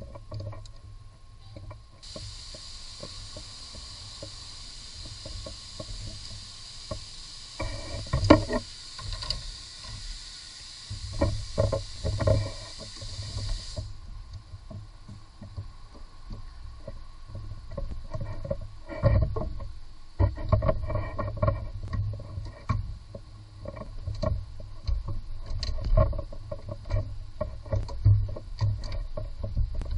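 Hands working on parts at the top of a car engine, making irregular clicks and knocks of plastic and metal over a low rumble. A steady hiss runs through the first half and stops suddenly.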